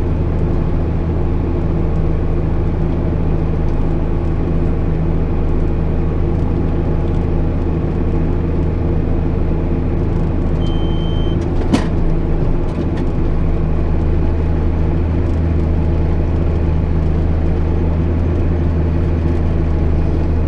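JCB Fastrac 8250 tractor engine running steadily. About ten seconds in a short electronic beep sounds, followed by a single sharp click.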